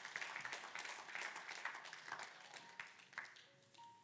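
Congregation clapping: many hands applauding together, thinning out to a few scattered claps about three seconds in.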